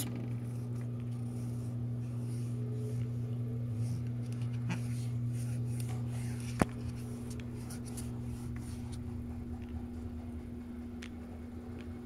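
Plastic lint filter of a top-load washing machine being handled, with light scratching and ticks as lint is picked off its mesh and a sharp click about six and a half seconds in, over a steady low hum.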